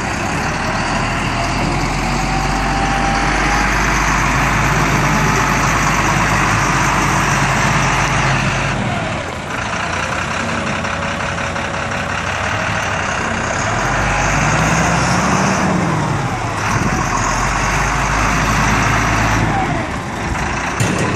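GMC medium-duty flatbed truck's engine running steadily at idle, a loud low drone. Its pitch rises and falls briefly about fifteen seconds in.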